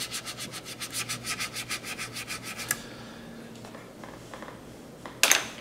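Stiff paintbrush scrubbing weathering pigment into the plastic skin of a scale model aircraft: quick back-and-forth strokes, about eight a second, that stop a little under three seconds in. A brief, louder sharp sound comes near the end.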